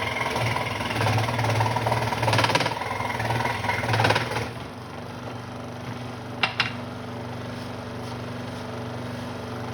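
Central Machinery scroll saw running with a steady motor hum, its reciprocating blade cutting through a wooden board for the first four or five seconds. The saw then runs on more quietly, with two sharp clicks about six and a half seconds in.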